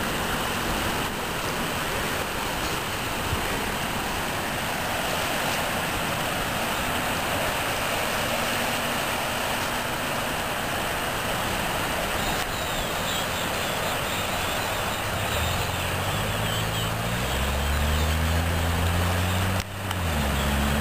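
A steady outdoor rush of wind and gentle surf. About three-quarters of the way in, an engine's low drone comes in and grows louder, rising in pitch, then dips briefly just before the end.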